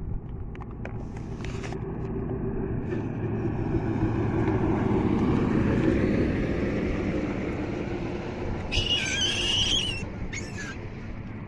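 A motor vehicle drives past, its engine hum swelling to a peak about halfway through and then fading. Near the end there is a brief high-pitched squeal.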